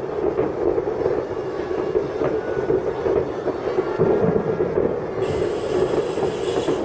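Continuous rumble and crackle of many distant fireworks going off at once, with scattered bangs and a heavier boom about four seconds in.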